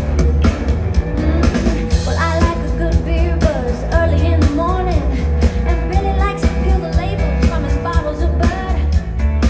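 Live pop-rock band playing over a steady drum beat and heavy bass, with a sung melody coming in about two seconds in.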